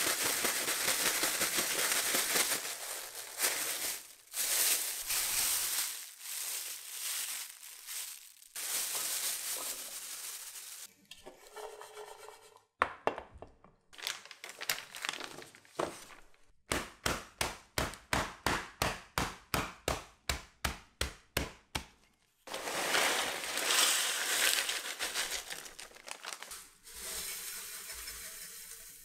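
A clear plastic bag crinkling and rustling as it is shaken to coat the food cubes inside with starch. Later, aluminium foil crinkles, with a run of even, quick ticks of about four a second in between.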